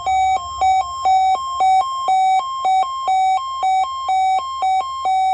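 Weather radio receiver's alert alarm sounding for the required weekly test: a loud, rapid electronic beeping that alternates between a lower and a higher note in an uneven, repeating pattern.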